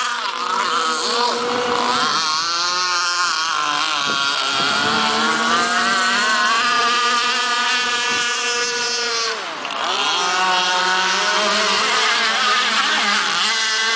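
Small gas two-stroke engine of an RC speedboat running. Its pitch wavers up and down, with a brief dip and swoop just before ten seconds in.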